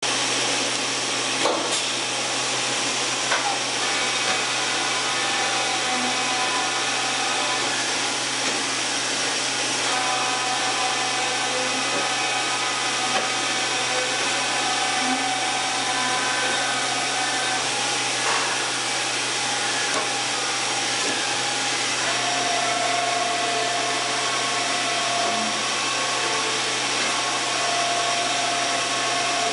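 1995 Fadal 6030HT CNC vertical machining center running, its table traversing along the X axis: a steady whir and hiss under a low hum, with whining tones that shift pitch a few times as the axis moves change. A few short clicks sound in the first few seconds.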